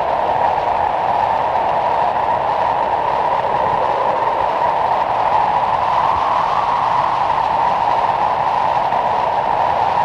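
Wind blowing steadily, a continuous rushing noise whose pitch wavers slowly up and down.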